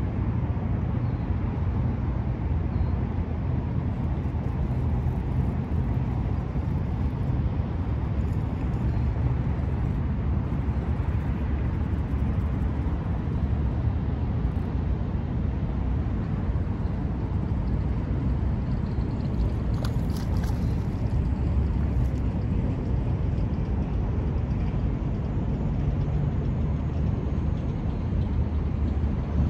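Steady low hum of highway traffic, with no distinct events standing out.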